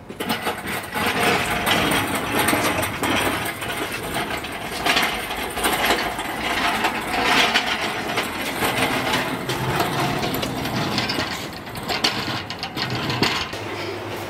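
Metallic rattling and clatter of a loaded engine crane being wheeled across concrete, its castors rolling and chain and frame knocking, with many short knocks throughout.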